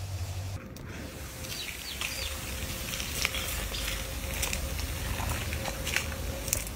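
White foam fizzing out of the neck of an upturned plastic bottle: a steady crackling hiss with many small scattered pops.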